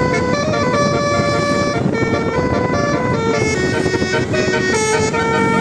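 Bus 'telolet' multi-tone air horn playing a continuous tune, its notes stepping up and down in pitch with two horns often sounding together.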